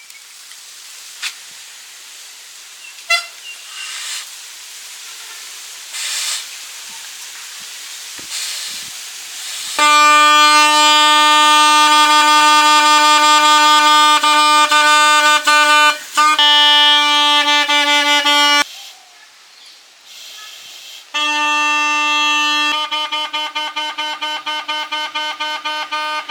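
Homemade vuvuzela horn blown in one long steady monotone blast of about nine seconds. After a short pause it is blown again, and the note breaks into rapid, even pulses near the end. Before the first blast there are only faint clicks and taps.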